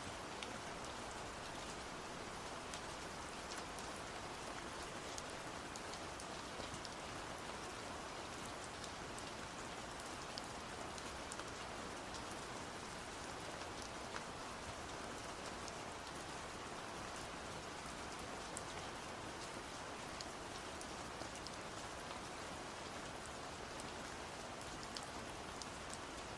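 Steady rain falling, an even hiss broken by many small, scattered ticks of individual drops.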